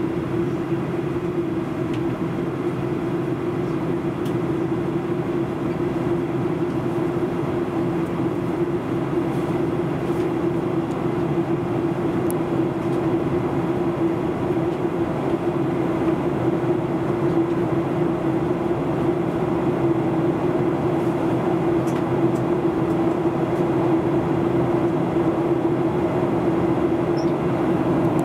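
Steady jet airliner cabin noise during the descent: engine and airflow rush with a steady low drone, growing slightly louder.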